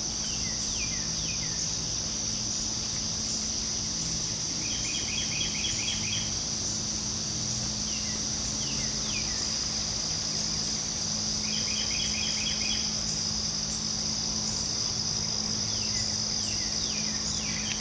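Steady chorus of night insects such as crickets, a continuous high shrill with a faster pulsing above it. Now and then, groups of short falling chirps and quick trills cut in, several times in all. A faint steady low hum lies underneath.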